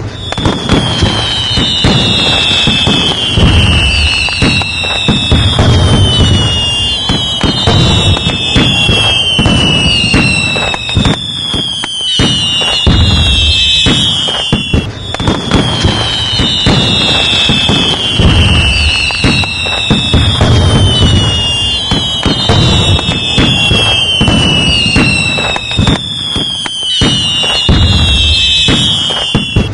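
Fireworks going off nonstop: dense crackling and bangs with low booms, over which whistling fireworks shriek again and again, each whistle falling in pitch and several overlapping. The same sequence repeats about halfway through.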